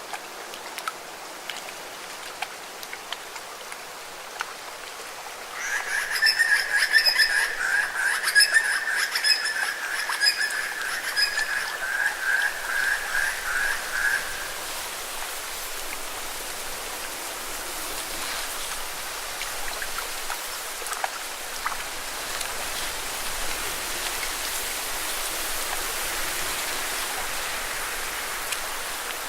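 Nature sound effects: a light trickle of water, then from about five seconds in a frog's fast pulsing trill that lasts about nine seconds, then steady rain for the rest.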